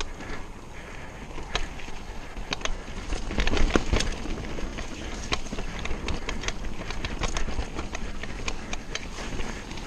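Mountain bike rolling fast down a dirt forest trail: the tyres rumble over the ground while the chain and frame rattle and knock over bumps, with a cluster of louder knocks about four seconds in.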